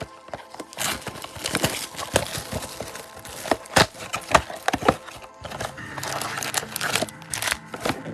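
Football trading card packaging being opened by hand: crinkling plastic wrapper and tearing, with many sharp clicks and snaps, over faint background music.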